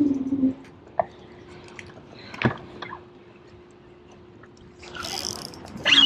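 Quiet spell on a fishing boat: a bow-mounted electric trolling motor hums faintly and steadily while holding position on spot lock. A few sharp knocks of gear on the boat come about a second in and again past halfway, and a short burst of hiss comes near the end.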